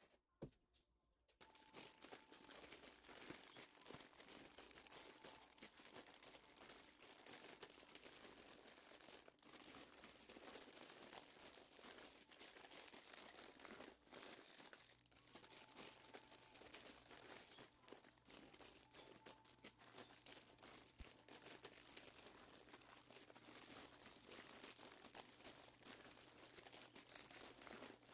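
Faint crinkling and rustling of plastic snack bags being handled and packed together.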